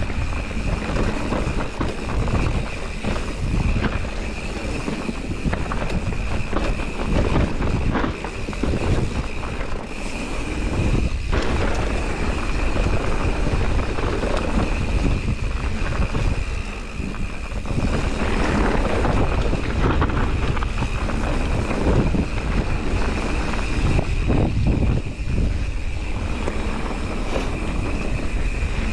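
Mountain bike running fast down a dirt singletrack: wind rushing over the camera microphone, tyres rolling on dirt, and frequent short rattles and knocks as the bike hits bumps, with a steady high hum over it.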